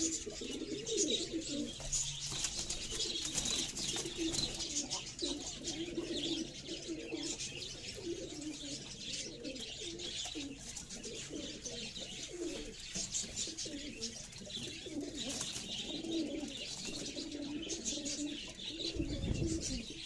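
Goly pigeons cooing continuously in their loft, overlapping low warbling coos from several birds, with higher chirping mixed in. A brief low rumble comes near the end.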